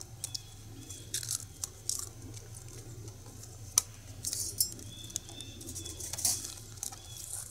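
Light metallic clicks and rattles of a small stainless wood-burning camp stove and cup being handled and fitted together, a handful of sharp ticks spread through, with a brief rattle a little past halfway.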